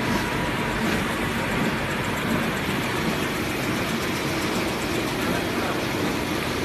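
Industrial A4 paper cutting machine running, a steady, even mechanical din as the paper web feeds through its rollers and cutter.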